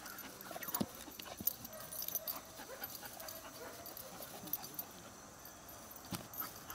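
German Shepherd puppy making small sounds while playing with a tug toy, with a few short knocks and scuffs.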